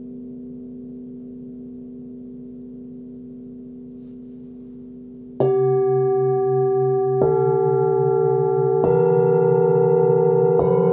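A set of seven hand-forged singing bowls tuned to one octave, from C to B. A bowl's hum fades for the first half. Then a mallet strikes four bowls in turn, about every one and a half to two seconds, each strike a different bowl, and their tones keep ringing and pile up together.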